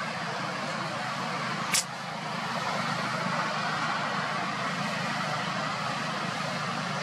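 Steady outdoor background noise, an even rush, broken once by a single sharp click about two seconds in.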